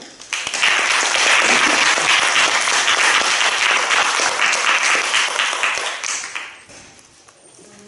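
Audience applauding, starting just after the start and dying away about six and a half seconds in.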